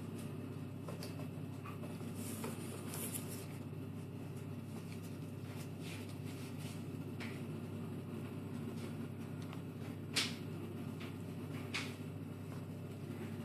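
A steady low hum with scattered light clicks, knocks and short scrapes, the sharpest click about ten seconds in.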